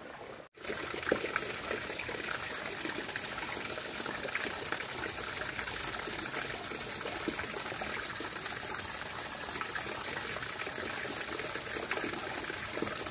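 Steady rush of running water from a small stream, starting after a brief cut about half a second in and holding even throughout.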